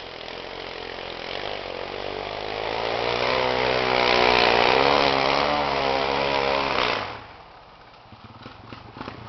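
Pit bike's small engine running and revving as the bike rides by, its pitch wavering, growing louder as it approaches and then cutting off suddenly about seven seconds in.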